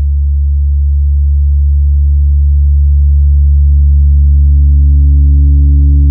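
Large Paiste gong rubbed with a friction mallet, giving a deep, steady drone with overtones that slowly swells. A higher overtone joins about two seconds in.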